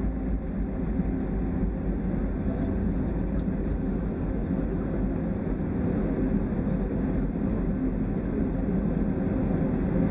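Airliner cabin noise: the jet engines and airflow heard from inside the cabin as a steady, low noise while the plane moves on the ground before takeoff.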